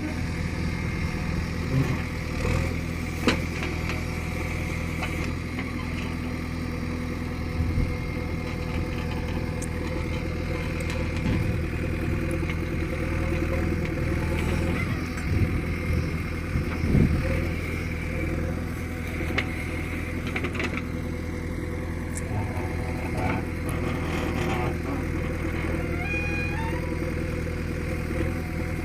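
JCB 3DX backhoe loader's diesel engine running steadily, with a few sharp knocks from the machine as it works.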